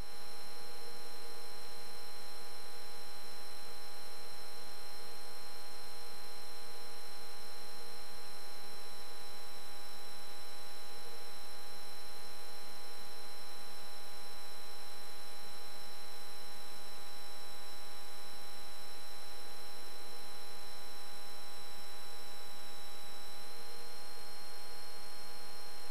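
Steady electrical hum and whine with several constant tones, the highest a thin whine that rises slightly in pitch near the end, heard through the aircraft's intercom audio feed rather than as open engine noise.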